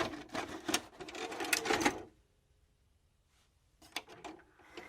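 Rapid clicking and clattering for about two seconds, then a pause and a few more clicks near the end.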